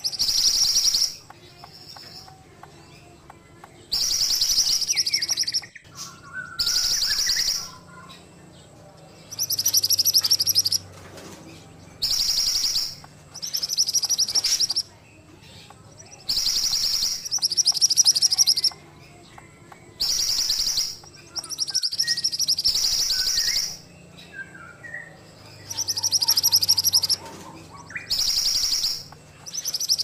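Caged mantenan songbird singing loud, rapid, buzzy phrases about a second long, repeated every two to three seconds, with softer whistled notes between them.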